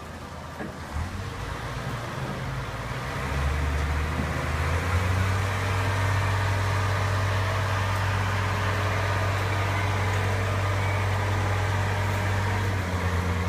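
A large engine running steadily with a low drone, growing louder about three seconds in and then holding even.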